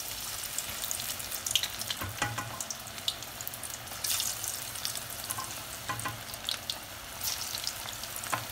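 Batter-coated cauliflower deep-frying in hot oil in a steel kadai: steady sizzling, with occasional sharp clicks and pops.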